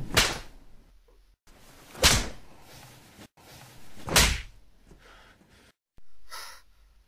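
Three loud, sharp thumps about two seconds apart, each dying away quickly, with a softer one near the end.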